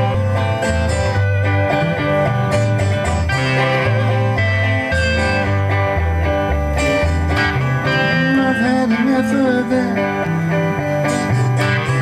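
A band playing live: electric guitars over a bass line that moves from note to note, with no clear singing.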